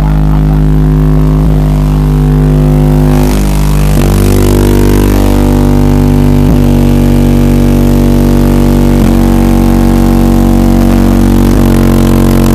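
A car-audio system of 24 Alpine Type R 10-inch subwoofers playing a bass track very loudly: deep, droning bass notes that change every two to three seconds.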